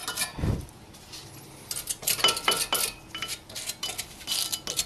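Metal tools and parts clinking and scraping against a car's front brake caliper bracket at the pad seats, with a dull bump about half a second in and a run of small clicks and scrapes after.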